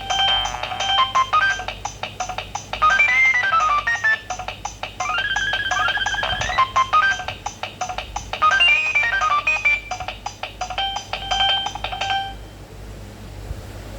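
A Nokia 7210 ringtone playing through a Nokia 2760's small loudspeaker: a fast, bright electronic melody of quick runs and arpeggios. It stops about twelve seconds in, leaving a faint hiss.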